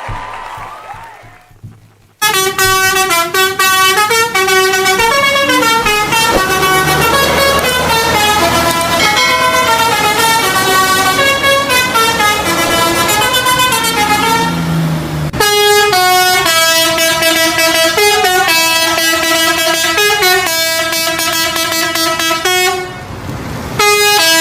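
Multi-tone telolet horn playing a stepping, tune-like melody, starting about two seconds in. It breaks off briefly around fifteen seconds in and again near the end.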